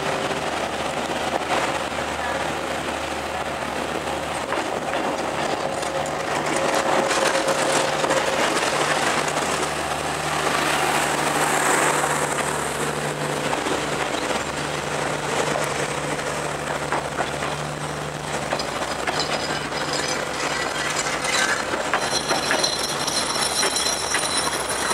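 Diesel-hauled passenger train passing close by: the locomotive's diesel engine hums steadily under the rumble of passenger coaches rolling past, wheels clicking over the rail joints. A high steel-on-steel wheel squeal joins in near the end.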